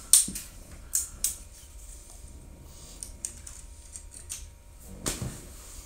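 Scattered light clicks and taps close to the microphone, with a duller bump just after five seconds in.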